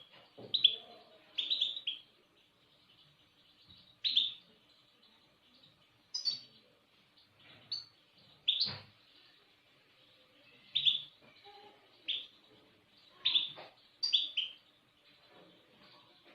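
A small songbird giving short, sharp chirps that drop in pitch, one or two at a time with pauses between.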